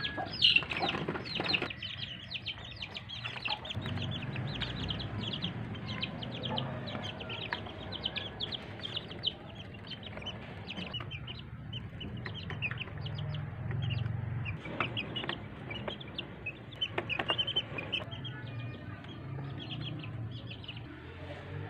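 Chickens clucking in many short calls in quick succession, over a low steady hum.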